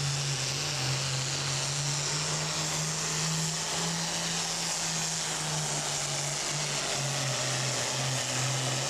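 Turbocharged diesel engine of a Limited Pro Stock pulling tractor running flat out under heavy load while dragging a weight-transfer sled, a loud, steady drone that wavers slightly in pitch, with a hiss from the turbo and exhaust. The sound drops away abruptly right at the end as the pull ends.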